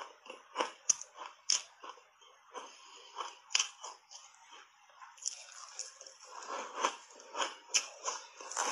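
Crunchy purple ice coated in matcha tea powder being chewed in big bites, a run of short sharp crunches that thin out in the middle and come thickly again toward the end.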